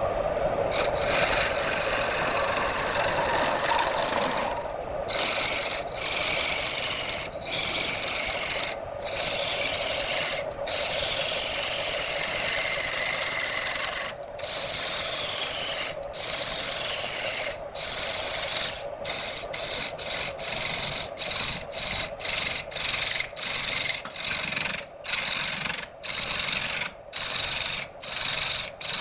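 Wood lathe spinning a piece of wood while a turning tool scrapes and cuts it, a steady rasping noise over the lathe's hum. The cut breaks off briefly now and then, and about once a second in the second half, as the tool is lifted and set back on the wood.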